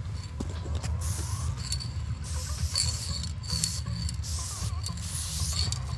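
Aerosol spray-paint can hissing in a series of short sprays against a wall, each under a second, some carrying a thin whistle tone.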